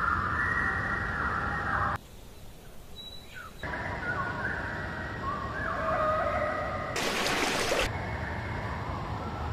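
Outdoor wildlife ambience with bird calls, the background changing abruptly several times. A brief burst of noise comes about seven seconds in.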